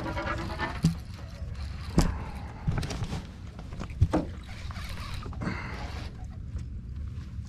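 Water splashing beside a small boat as a hooked smallmouth bass is played and netted, with the landing net dipping in. A few sharp knocks against the boat come through, the loudest about two and four seconds in.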